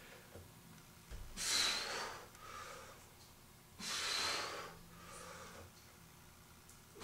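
A man's forceful exhales while doing wide-grip overhand chin-ups: two short, airy breaths about two and a half seconds apart, one with each pull toward the bar.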